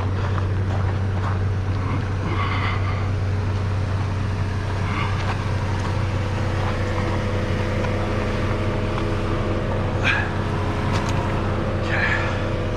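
Vehicle engine idling steadily, a constant low hum, with a few faint short sounds over it.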